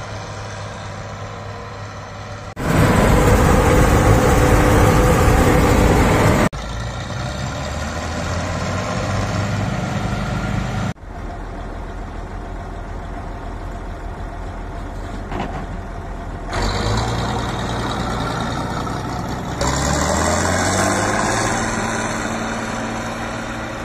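Diesel engine of a Bizon combine harvester running, heard in several short takes that change abruptly in loudness, the loudest a dense roar a few seconds in. About twenty seconds in the engine speed rises.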